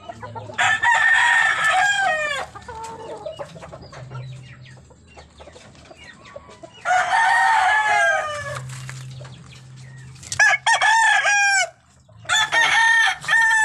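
Gamefowl roosters crowing: four long crows one after another, the last two close together near the end.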